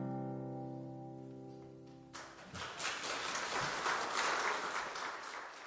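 Final chord on an acoustic guitar ringing out and fading away, then about two seconds in the audience breaks into applause that tapers off near the end.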